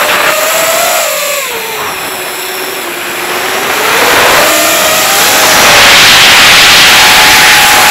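Racing drone's motors and propellers whining, heard through the onboard camera: the pitch and loudness drop as the throttle is eased about a second in, then climb back with a louder rushing as it is opened up again about five seconds in.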